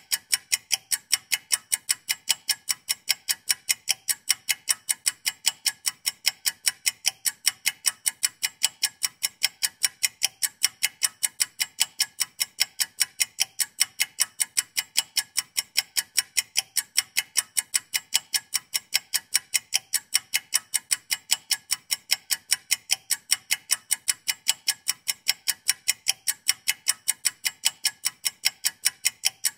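Clock-ticking sound effect used as a countdown timer: fast, perfectly even ticks that run on without a break.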